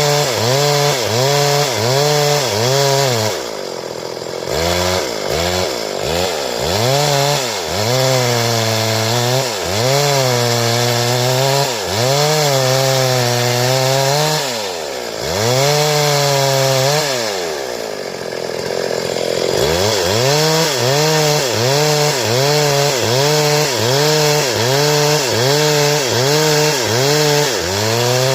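Stihl chainsaw cutting timber into boards. The engine's pitch rises and falls about once a second as the chain bites into the wood and frees up again, and it eases off to a lower speed twice, near the start and past the middle.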